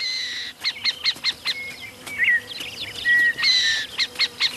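Greater rhea chicks peeping: many short, high whistled calls, some in quick runs, with a few longer level whistles.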